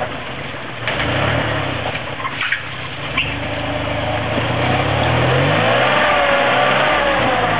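Engine of a modified Suzuki Samurai rock crawler revving up and down as it climbs over rocks in low gear, with a few knocks in the first few seconds.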